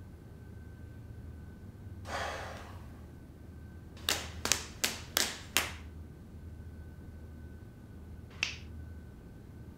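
A short breathy hiss, then five sharp knuckle cracks in quick succession from clasped hands being squeezed. A single neck crack follows near the end.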